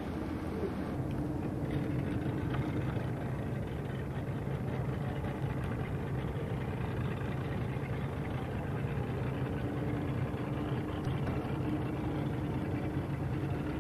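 Boat engine running steadily at low speed: a low, even hum with a fainter steady tone above it, over a wash of wind and water noise.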